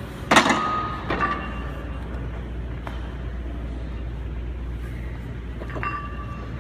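Metal clanks from a plate-loaded Hammer Strength leg curl machine: its lever arm and iron weight plates knock and ring. The loudest clank comes about half a second in, a lighter one a second later, and another near the end, over a steady low hum.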